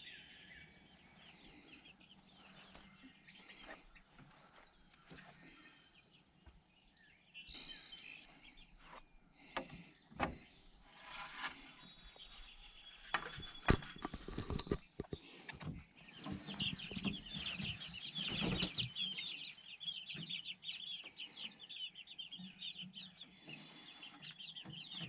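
Young chickens clucking and peeping, busiest in a dense run of short high chirps past the middle, over a steady high-pitched whine. A few sharp knocks sound around the middle.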